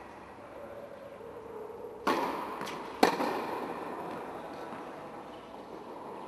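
Tennis ball being struck and bouncing during a rally on an indoor hard court: two sharp cracks about a second apart, each echoing around the hall.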